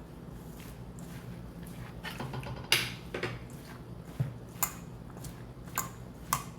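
Kitchen dishes and utensils clinking: one sharp clink about two and a half seconds in, with some handling noise around it, then four lighter clicks, over a low steady hum.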